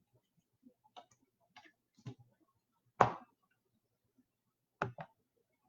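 Scattered light clicks and taps of trading cards and plastic card holders being handled on a table, with a sharper knock about three seconds in and another near the end.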